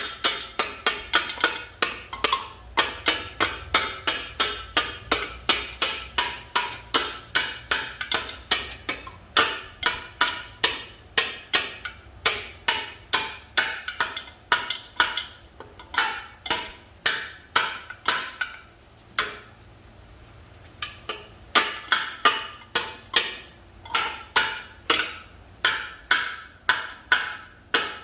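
Hammer lightly tapping a brass punch over and over, driving a roller bearing into an M5R1 transmission case, about three to four sharp metallic taps a second. The tapping pauses briefly about two-thirds of the way through, then resumes.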